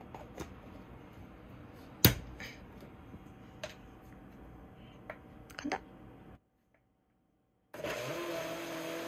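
Light taps and clicks of handling, the loudest a sharp click about two seconds in. After a moment of dead silence, a countertop blender starts near the end and runs steadily, blending frozen berries with macadamia milk.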